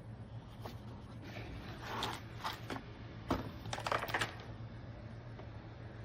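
Light clicks and rattles of small hard objects being handled, bunched in two flurries about two seconds in and again between three and four seconds in, over a low steady hum.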